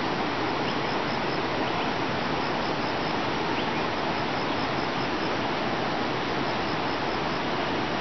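Steady, even rushing noise of running water, with faint, evenly repeated high ticks above it.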